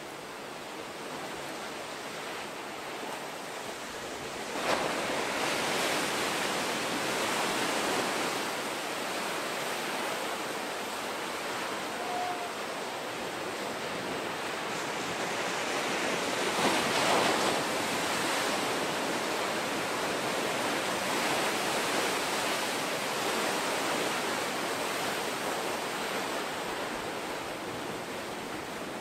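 Ocean waves breaking and surf washing in close to shore, a steady rushing noise. A wave crashes louder about five seconds in and another around seventeen seconds.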